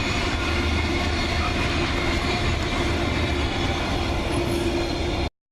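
Intermodal freight train rolling past at speed, a steady rumble and rail noise with a faint steady hum. It cuts off suddenly near the end.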